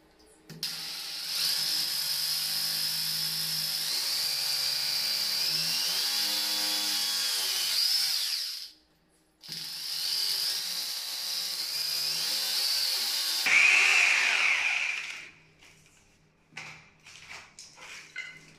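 Corded electric drill boring into ceramic wall tile, running in two long stretches with a brief stop about nine seconds in; its whine shifts in pitch near the end of the second run. A few short light knocks follow near the end.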